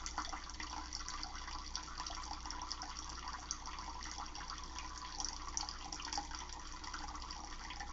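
Water running steadily, a continuous splashing hiss flecked with small irregular spatters.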